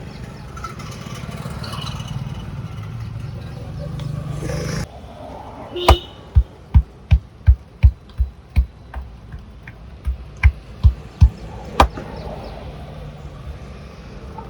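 Steady street traffic noise that drops away abruptly about five seconds in, then a barber's hands striking a customer's back or head in a percussive massage: about a dozen sharp thuds, two to three a second, in two runs with a short pause between them.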